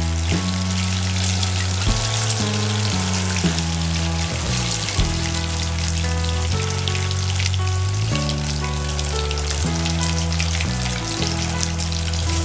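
Marinated chicken pieces deep-frying in hot oil in an aluminium kadai, with a steady crackling sizzle. Background music of held notes that change pitch every second or so plays underneath.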